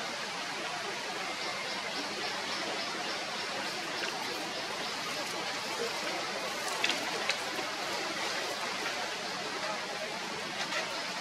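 Steady hiss of outdoor background noise, with a couple of faint ticks a little after the middle.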